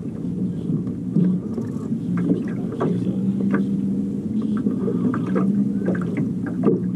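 Boat engine running steadily, a low hum with a held pitch, with a few light knocks and clicks over it.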